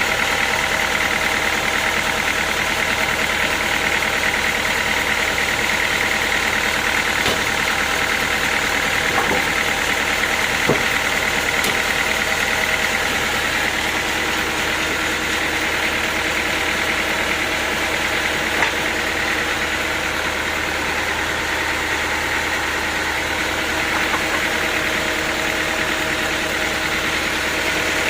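Sawmill machinery running steadily, an even engine-like drone that holds its pitch, with a few faint knocks.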